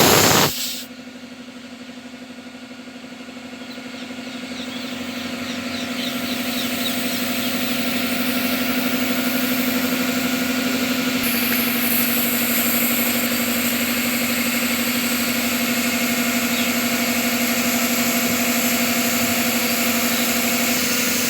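An engine running steadily, with a brief loud noise at the very start. It grows louder over several seconds and then holds an even drone.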